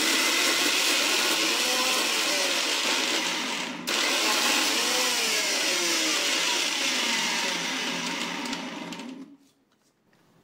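Electric mixer grinder with a stainless-steel jar running at full speed, grinding boiled urad dal into a batter. It cuts out for a split second about four seconds in, starts again, then runs down and stops about nine seconds in.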